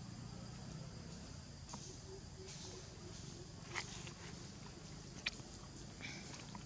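Quiet outdoor background with a few faint, sharp clicks, the clearest about four and five seconds in, and a brief faint higher-pitched sound near the end.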